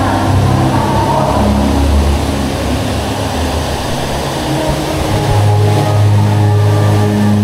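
Dark-ride show audio: a loud low rumbling drone with sustained tones layered over it, growing stronger and steadier about five seconds in.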